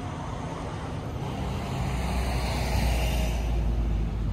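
A motor vehicle passing by, its engine and tyre noise swelling to a peak about three seconds in and then easing off, over a steady low rumble.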